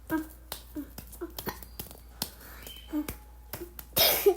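Fidget toys handled by hand: a string of sharp clicks and pops, with a louder noisy burst near the end.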